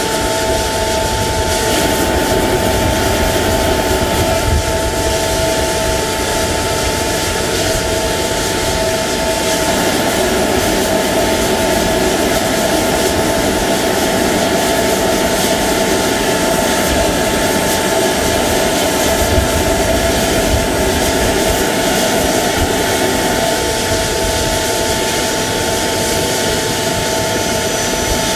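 A jet turbine running steadily: a constant whine on two fixed pitches over a loud rushing noise, with a fluttering low rumble underneath.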